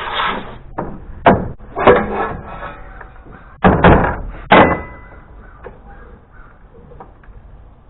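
Hand work on a DR Pro XL SP stump grinder's belt drive: five sharp knocks and clanks over about three and a half seconds, the last followed by a short metallic ring, then faint handling noise.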